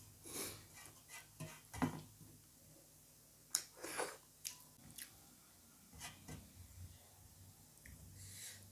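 Quiet eating sounds of chicken curry eaten by hand: scattered short wet smacks and clicks from lips and fingers being sucked, with some chewing.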